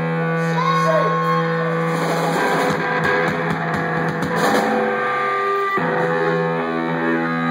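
Live rock band playing: an electric guitar holds ringing chords with sliding, bending notes. A few drum hits come in the middle, and the chord changes near the end.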